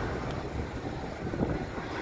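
Steady low rumbling of road traffic moving through the crossing, mixed with wind buffeting the microphone.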